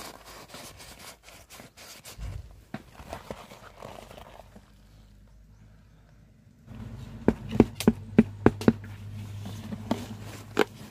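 Handling noise from a hornet protective suit: its fabric rustles as it is picked over. About two-thirds of the way in a steady low hum starts, and a quick run of sharp taps follows, about eight in a second and a half, with one more near the end.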